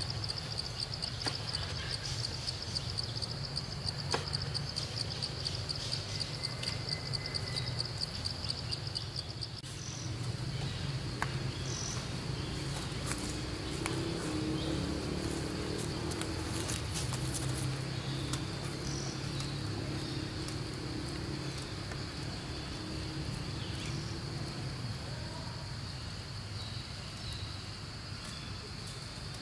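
Insects chirring in a high, rapidly pulsing trill, strongest for the first nine seconds or so and then fainter, over a low steady rumble.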